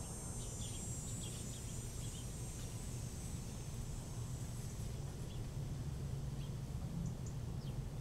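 Woodland ambience: scattered short bird chirps over a steady low rumble.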